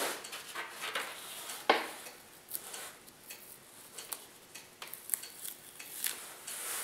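Stiff paper and grass mat rustling and crinkling as the rolled sheet is handled and pressed down onto the layout, with scattered small clicks and one sharper tap about two seconds in.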